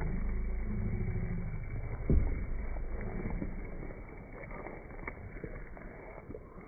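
Wooden spoon stirring chunks of pork in simmering green chile sauce in an electric skillet. There is a low rumble at first, a single thump about two seconds in, then faint wet clicks.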